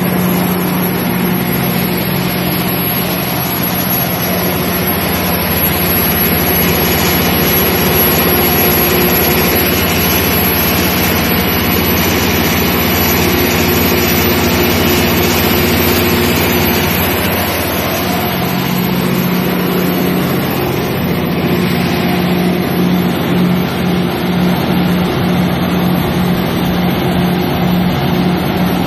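John Deere 6090HF485 9.0-litre six-cylinder diesel engine of a 195 kW generator set, running loud and steady during a load test. Its tone shifts slightly about 18 seconds in, turning a little more uneven.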